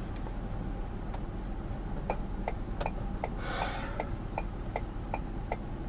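Car's turn-signal indicator clicking steadily inside the cabin, about two to three clicks a second, starting about a second in, over a low steady cabin rumble as the car stops at a stop sign. A short hiss comes briefly near the middle.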